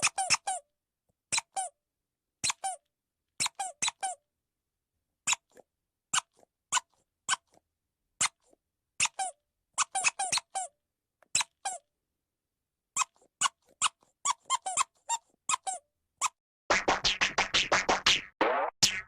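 Cartoon squeak sound effect: many short, high squeaks in uneven clusters with silent gaps between them, turning into a fast, dense run of squeaks for the last two seconds or so.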